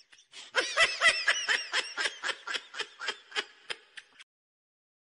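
A person's high-pitched laugh: it starts again about half a second in, with rapid 'ha' pulses that slow and fade away, stopping about four seconds in.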